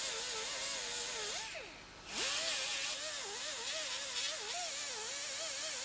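Small right-angle disc grinder grinding down fresh plug welds on a steel frame rail, its whine wavering in pitch as the disc bears on the metal. About one and a half seconds in, the pitch falls away and the sound dips briefly, then the grinder spins back up and keeps grinding.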